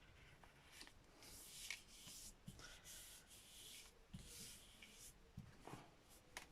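Faint rubbing and rustling of paper being pressed down by hand, in a few short strokes, with a couple of soft knocks.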